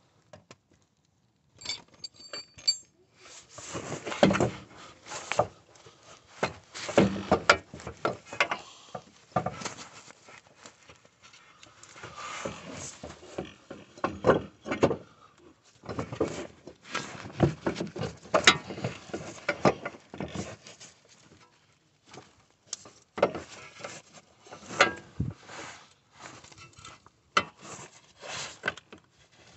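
Irregular metallic clinks, knocks and scrapes as a front drive shaft is wiggled by hand and worked loose from the wheel hub.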